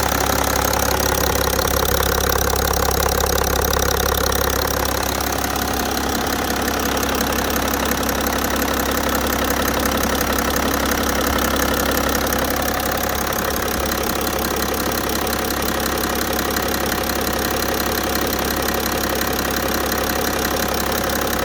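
BMW 530d's M57 3.0-litre straight-six diesel idling steadily with a rhythmic knock, a bad engine sound that the owner cannot diagnose.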